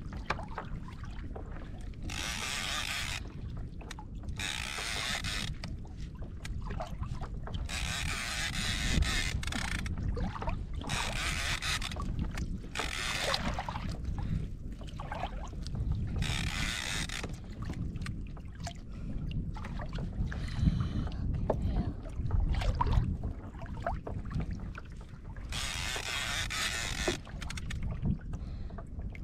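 Water rushing and sloshing against a fishing kayak's hull with wind rumbling on the microphone, broken by repeated hissing bursts a second or two long.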